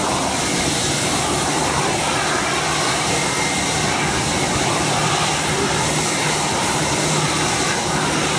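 Airbus A321's twin jet engines at taxi power as the airliner rolls past: a steady rushing hiss with a faint low hum beneath it.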